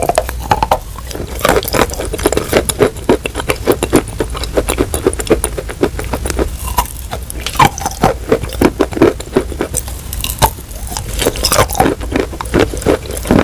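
Close-miked biting and chewing of a block of Turkestan clay chalk coated in wet chalk paste: dense, irregular crunching and crackling, mixed with wet mouth smacks.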